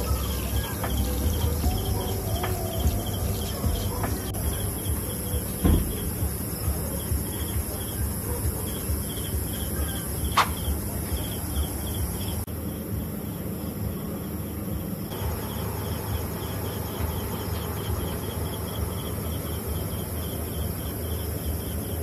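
Insects chirping in a quick, steady repeating pulse over a low rumble, with two sharp knocks about six and ten seconds in.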